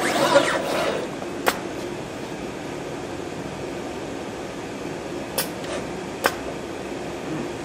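Japan Unix desktop soldering robot running a soldering cycle: a steady mechanical hum with a short rush of noise at the start and three sharp clicks spread through the cycle.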